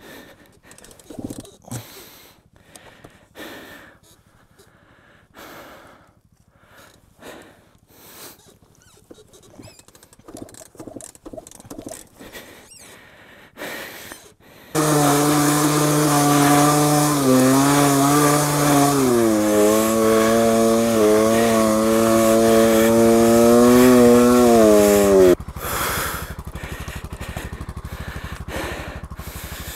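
Scattered light knocks and rustles, then a small motorcycle engine revved hard and held at high revs for about ten seconds while trying to drive out of deep mud. Its pitch drops a step partway through, and it cuts off abruptly.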